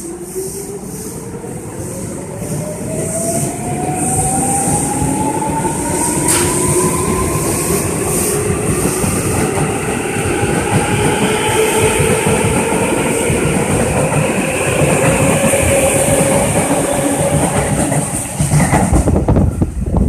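Tobu 9000-series electric train pulling out and accelerating. Its motors whine in tones that rise steadily in pitch over the rumble and clatter of the wheels on the rails, which grows louder as it speeds up.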